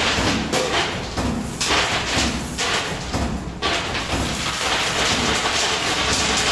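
Coin pusher machine running: its pusher shelf sliding back and forth among the coins, a steady noisy rumble that dips briefly now and then.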